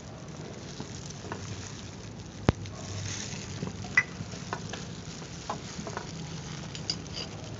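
Butter sizzling in a pot on a gas burner while a wooden spatula stirs it, with scattered sharp clicks of utensil on pot; the loudest click comes about two and a half seconds in.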